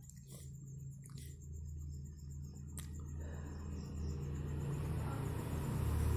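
Background noise from a home recording: a steady low hum with faint insect-like chirping and three sharp clicks in the first three seconds, then a rushing noise that swells and grows louder from about three seconds in.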